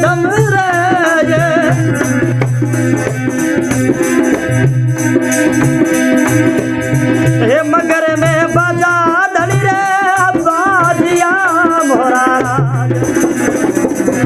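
Rajasthani folk music: a dholak keeping a steady beat with the jingles of a khanjari, under a wavering melody line that comes in two phrases, at the start and again from about halfway through.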